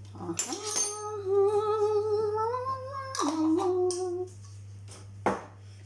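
A person humming a long held note that drifts slightly upward, then drops to a lower note for about a second. A single short knock follows near the end.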